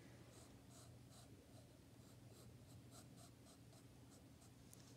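Faint scratching of a pencil on sketchbook paper in short strokes, about three to four a second.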